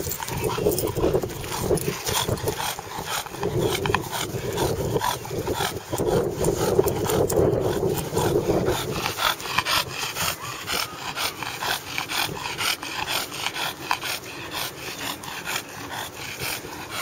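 English bulldog making throaty grunting and breathing noises as it mouths and shoves a soccer ball over grass. The noises are strongest in the first half and ease off after about nine seconds. Many short knocks and scuffs of the ball and paws run through it.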